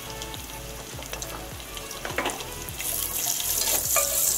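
Sliced onions frying in hot oil in a handi with whole spices, a steady sizzle. About three seconds in the sizzle grows louder as a spatula stirs the onions through the oil, with a few knocks of the spatula on the pot.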